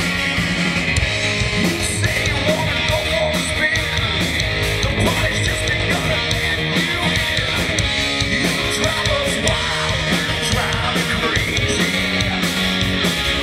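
Live rock band playing: electric guitar, drums keeping a steady beat, and singing.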